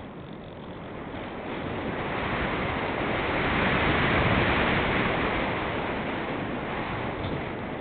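Wind noise from air rushing over the microphone of an RC plane's onboard camera in flight: a steady rush that swells about halfway through and eases off again.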